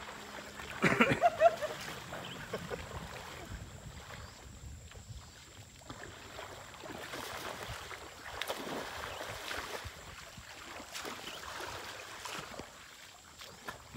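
Splashing of a person wading through a shallow river and casting a throw net into the water, with a short louder burst about a second in.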